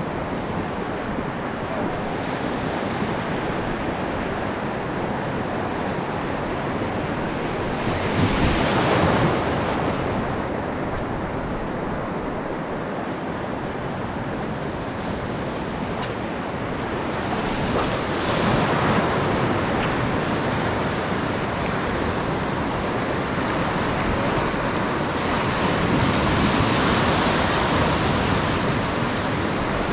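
Ocean surf breaking and washing through the shallows. Bigger waves swell louder about a third of the way in, again past halfway, and near the end.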